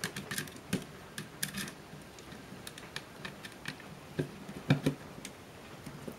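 Irregular small clicks and taps of a screwdriver and fingers on the plastic and metal parts of a Canon PowerShot S2 IS camera being taken apart, with a louder cluster of clicks about three quarters of the way through.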